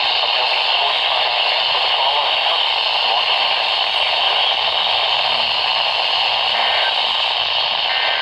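Steady static hiss from a radio receiver tuned to an emergency broadcast. Near the end come two short, faint warbling data bursts: the start of Emergency Alert System SAME header tones, the sign that a new alert is about to be broadcast.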